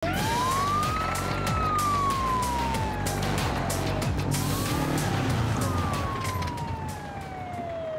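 Fire engine siren wailing through two full cycles, each a quick rise in pitch followed by a long, slow fall.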